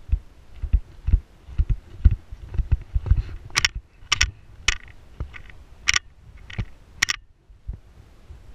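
Short low knocks about twice a second, close to the microphone, with five or six sharp clicks in the middle stretch. This is mechanical handling or mount noise at the camera rather than anything in the scene.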